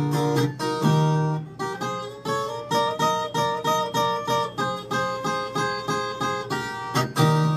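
Brazilian ten-string viola played on its own: strummed chords ring for the first second and a half, then a picked melody in even notes at about three a second.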